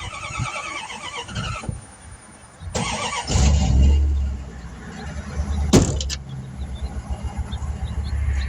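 High-pitched squealing twice, then a low steady motor hum starts about three seconds in and keeps running, with one sharp knock near six seconds.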